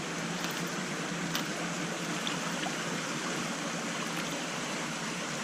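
Creek water flowing and trickling steadily.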